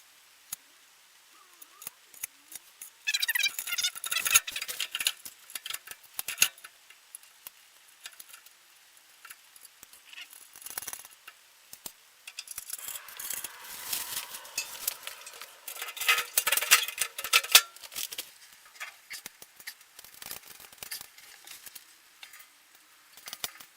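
Metal parts and fasteners being handled during assembly, clinking and rattling in irregular bursts with scattered clicks, loudest about three to six seconds in and again from about thirteen to eighteen seconds in.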